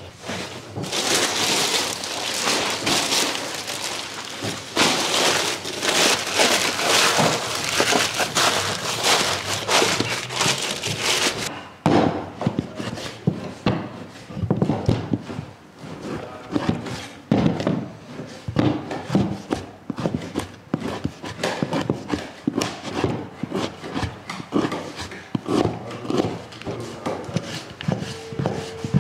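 A loud, steady rushing noise with no visible source cuts off suddenly about twelve seconds in. Then a kitchen knife chops and dices raw lamb fat on a wooden cutting board, the blade knocking on the board several times a second.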